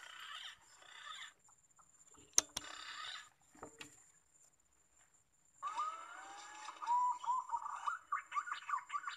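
Punai (green pigeons) calling with wavering, gliding whistles, in two spells: one at the start and one from about halfway on. Between them comes a single sharp click about two and a half seconds in, then a few faint clicks.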